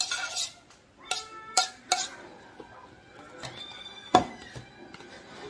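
Dishes and utensils clattering and clinking as food is prepared. A burst of clatter comes first, then a few sharp clinks with a short ring, and the loudest knock comes about four seconds in.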